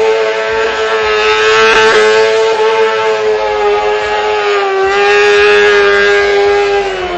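Motorcycle engine held at high revs during a smoky burnout, the rear tyre spinning against the pavement with a hiss. The engine note holds steady, then drops near the end as the throttle eases.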